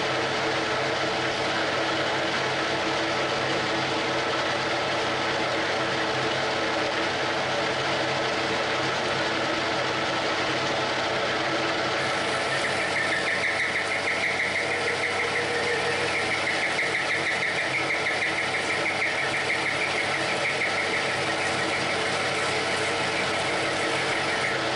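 Metal lathe running steadily, its motor and gear train humming. From about halfway through, a hand tool held against the turning workpiece adds a high, fast-fluttering scraping.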